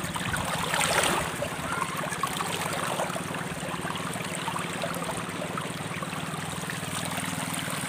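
Shallow river running steadily over rocks, with a louder splash about a second in as a person rises to stand in the water.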